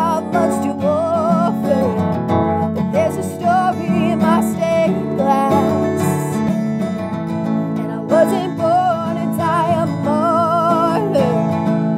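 A woman singing held, wavering notes with vibrato over a strummed acoustic guitar.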